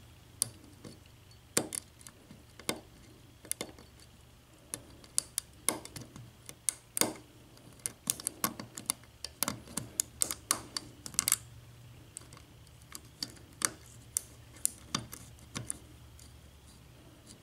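Lock pick and tension wrench working the pin stack of a Kasp 14040 six-pin padlock with spool and serrated pins: small, sharp metallic clicks and ticks at an uneven pace as the pins are picked.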